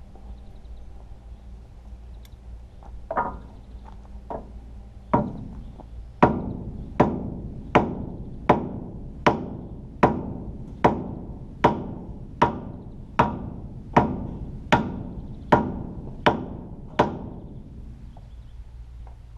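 Hammer blows on metal: a few lighter taps, then about sixteen hard strikes at an even pace, a little under a second apart, each ringing briefly. A fitted part is being driven deeper into place.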